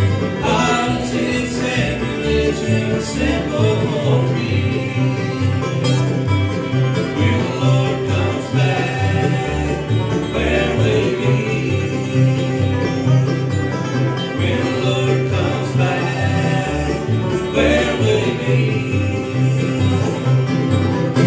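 Live bluegrass band playing a song: banjo, upright bass walking out a steady alternating beat, fiddle and acoustic guitars.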